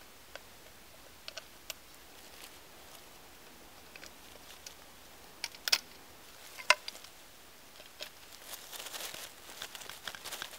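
Small wood and metal clicks and taps as a wooden folding bow saw is assembled, a metal pin pushed through the frame and the blade hooked on, with two sharper clinks a little past the middle. Near the end, dry fallen leaves rustle as the frame is moved across the leaf litter.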